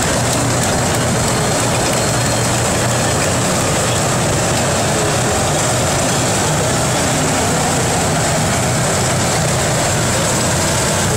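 Column of T-72 tanks driving past: a steady, dense rumble of their diesel engines and tracks.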